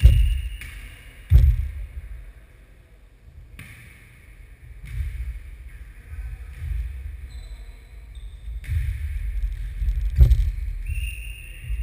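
A ball being kicked and bouncing on a wooden gym floor during a nohejbal (football tennis) rally. Two sharp echoing thuds, about a second in and near the end, with a low rumble between them.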